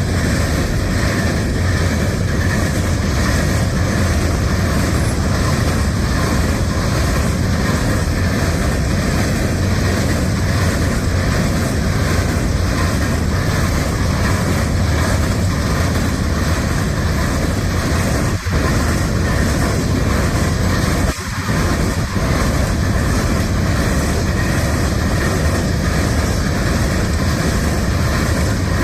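Freight train rolling past at close range: a loud, steady rumble and rail noise from the passing cars, with two brief dips in level about two-thirds of the way through.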